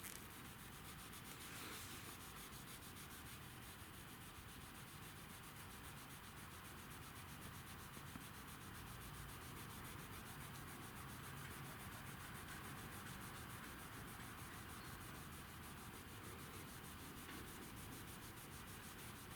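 Faint, steady rubbing of a cloth worked back and forth over car paintwork with a mildly abrasive scratch-repair compound.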